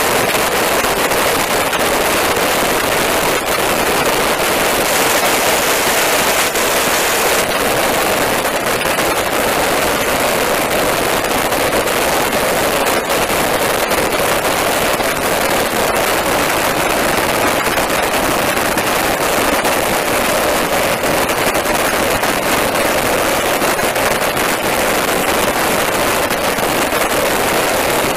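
Steady loud roar of in-flight aircraft noise aboard a KC-130J Hercules tanker: rushing airstream and engine noise, with constant crackling of wind buffeting the microphone.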